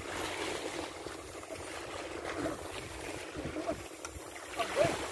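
Small waves lapping and splashing against a rocky shore.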